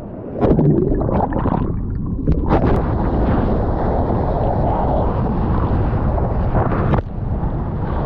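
Ocean water rushing and splashing right at a GoPro held at the surface, with wind buffeting the microphone and short splashy crackles. The sound turns muffled and thinner for a moment at the start and again suddenly about seven seconds in.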